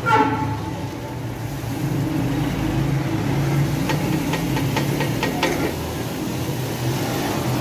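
Tomato and green-chilli paste poured into hot oil in an aluminium pot, frying over a steady low mechanical hum. A few sharp clicks around the middle, from the plastic container being tapped against the pot.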